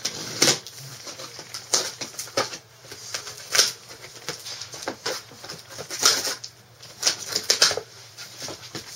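Cardboard shipping box being opened by hand: flaps pulled back and the box handled, an irregular run of crackling, scraping rustles and light knocks.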